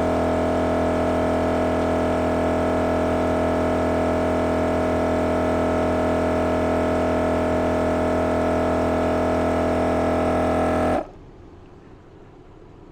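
MORRflate tire-inflation compressor running with a steady hum while inflating the tires, then shutting off abruptly about eleven seconds in as it reaches its set pressure of about 38 psi.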